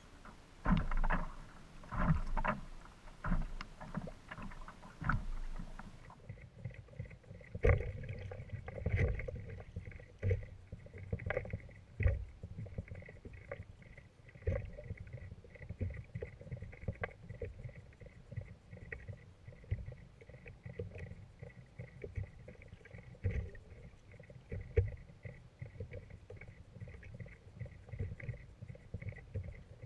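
Choppy lake water slapping and sloshing against a fishing kayak's hull, with irregular hollow thumps and knocks and a low rumble.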